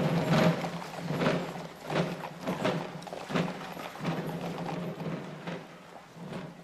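Horses' hooves clip-clopping on cobblestones at a walk, sharp knocks about every 0.7 s over a steady low hum, fading toward the end.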